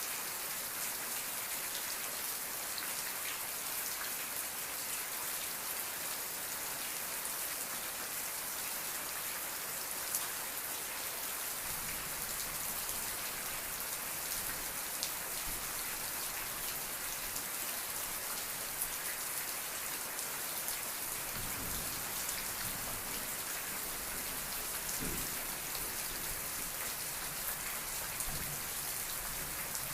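Steady rain falling on a surface: a dense, even hiss of rain with many small drop ticks.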